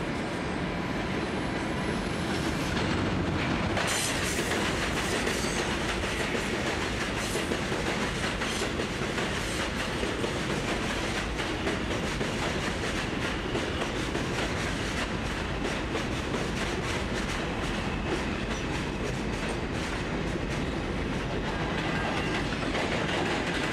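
R142 subway train rolling past on the elevated track, a steady rumble with a rapid clickety-clack of wheels over rail joints. It gets louder about three seconds in.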